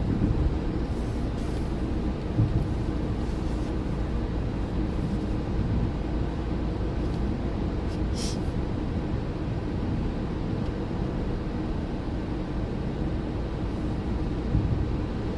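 Steady low rumble of a car's road and engine noise, heard from inside the cabin of a moving car, with a brief hiss about eight seconds in.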